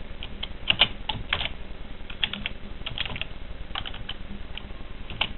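Typing on a computer keyboard: keystrokes come in small clusters of two or three clicks with short pauses between them.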